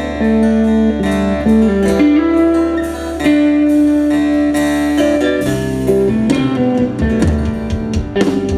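Live band playing amplified music: electric guitar lines with long held notes over bass and drums. The low bass note shifts to a new pattern about halfway through.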